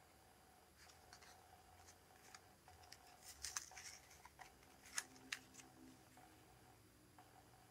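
Faint handling noise of a cardstock greeting card being turned over and opened by hand: soft rustles and light ticks, a cluster of crackles about halfway through and two sharper clicks shortly after.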